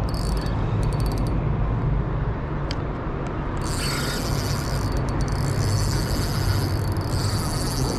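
Steady low rumble under a high insect trill, typical of crickets. The trill is absent for the first three and a half seconds, then comes back.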